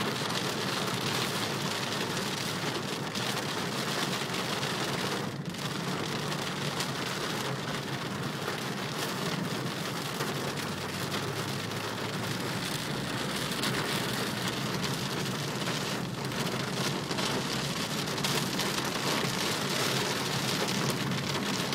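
Heavy rain beating on a car's windscreen and roof, heard from inside the moving car: a steady, even hiss over a low, constant drone from the car.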